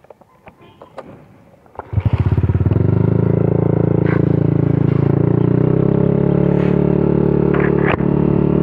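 A few faint knocks, then about two seconds in a motor scooter's engine comes in suddenly and loud and runs steadily as the scooter rides on.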